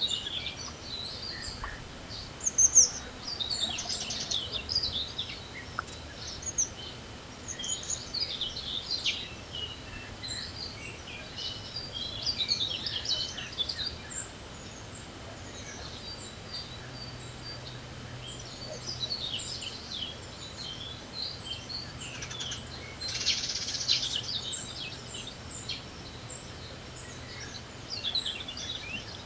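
Several small songbirds singing and chirping in quick bursts of high chirps and trills, over a steady background hiss of wind.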